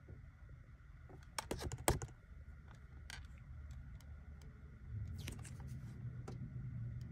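Light clicks and taps of a card-stock scratch-off lottery ticket being handled in the fingers, a quick cluster about a second and a half in and a few more near the middle, over a low steady rumble that gets louder about five seconds in.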